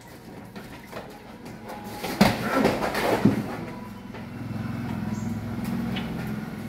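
A burst of clattering knocks and rattling, then a long, low cow moo.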